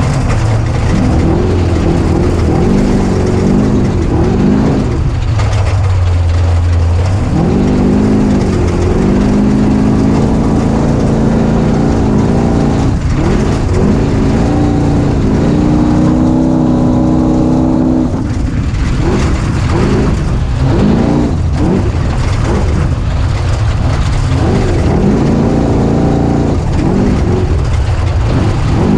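A small 250 cc vehicle engine under way, its pitch climbing and dropping again and again as it is revved up and eased off, over a constant noisy hiss.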